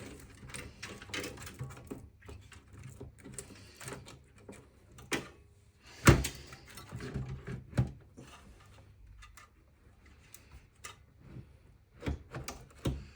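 Irregular clicks and knocks of a power supply being worked into position inside a desktop PC case, with one sharp knock about halfway through and a couple more near the end.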